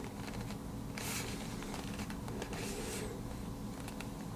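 A small knife box being handled and turned over: a couple of soft rustling swishes and a few light clicks and taps, over a steady low room hum.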